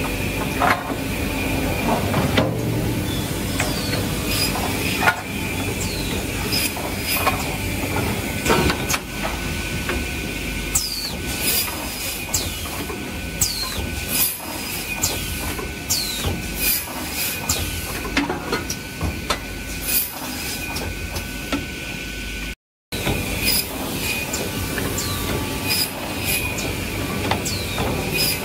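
Automatic optimizing cross-cut saw for timber running: a steady machine drone with a high whine, broken by irregular sharp clacks and short hisses from its pneumatic clamps and saw as boards are cut.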